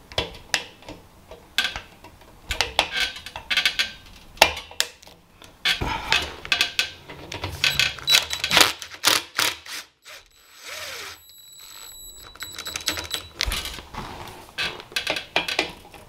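Screwdriver forcing the ground screw into an unthreaded hole on the air compressor, cutting its own thread: irregular metallic clicks, creaks and scrapes as the screw is turned in.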